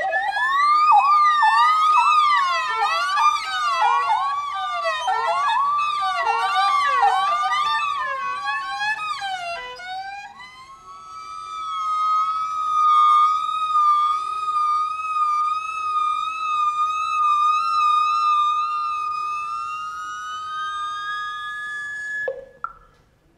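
High, wailing, siren-like glissandi from a viola and a wordless high voice, swooping up and down about twice a second. After about ten seconds they settle into one long held high note with a slight waver, which slides upward and stops abruptly near the end. A vibraphone mallet strike follows.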